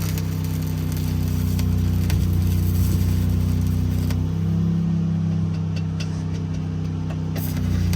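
Engine running at a steady speed, its note shifting slightly about four seconds in.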